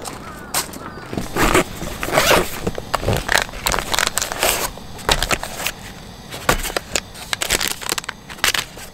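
Hands opening the front pockets of a fabric Helinox Tactical Field Office Cube storage organiser: rustling and scraping of nylon fabric with an irregular run of short crackles and clicks.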